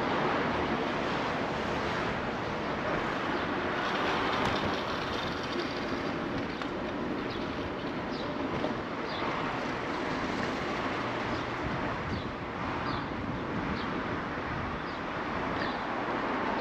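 City street traffic noise heard from a bicycle riding along the road: a steady rush of cars, with a few short high chirps in the second half.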